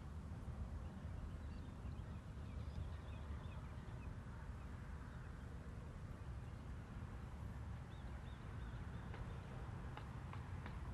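Open-air shoreline ambience: a steady low rumble of wind on the microphone, with faint short bird chirps a few times and a few light clicks near the end.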